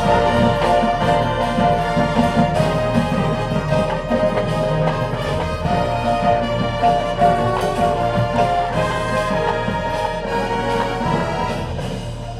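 High school marching band playing: brass holding loud sustained chords over drumline and pit percussion, easing a little near the end.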